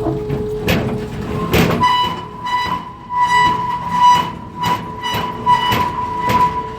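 Heavy metal screeching and clanking as a Case 480 backhoe is dragged off a steel trailer by another backhoe lifting its rear end: a steady high-pitched squeal sets in about two seconds in and holds, broken by repeated sharp clanks and scrapes.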